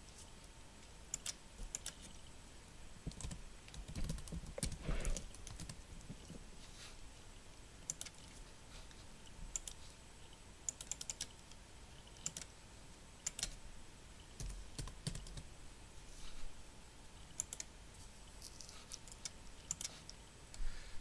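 Faint computer keyboard typing in short spells, with scattered single key or mouse clicks between them.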